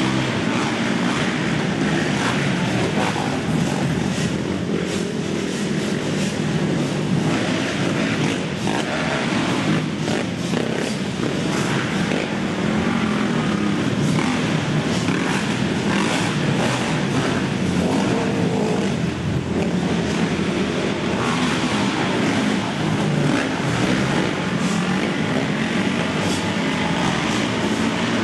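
Several racing quads' engines revving hard together as they race around a dirt track, one continuous, loud, dense wall of engine noise.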